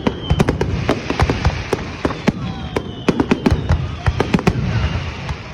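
Fireworks display: rapid, irregular crackling bangs, several a second, over a low rumble.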